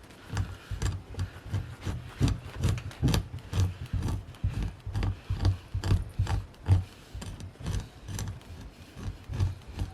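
Hide being scraped by hand with a scraping tool: rhythmic rasping strokes, about two to three a second, each with a dull thud.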